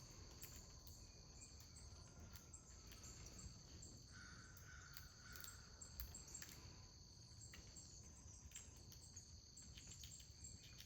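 Faint, steady chirping of crickets, a continuous high-pitched trill.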